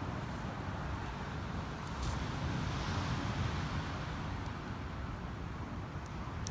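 Steady outdoor rumbling noise, swelling a little about halfway through, with a few faint clicks.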